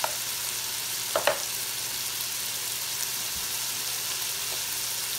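Oil sizzling steadily in a pan of onions and potatoes frying on medium-high heat. There are three short light clicks in the first second and a half.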